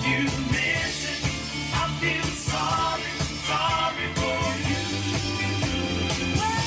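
A rock song with singing and drums, played back from a recording made on a Revox B77 reel-to-reel tape deck at 3 3/4 inches per second.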